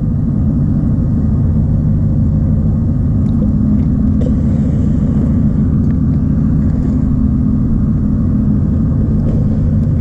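Strong blizzard wind buffeting an action camera's microphone: a loud, steady low rumble.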